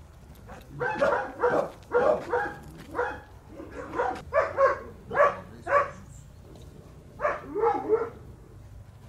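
Dog barking: about a dozen barks in quick runs, with a pause of about a second near the end.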